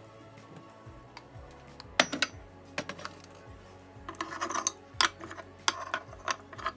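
Clicks and knocks of kitchen things being handled and put away: a cabinet door opened and silicone trivets picked up off a wooden cutting board. There is a sharp knock about two seconds in and a denser clatter around four to five seconds.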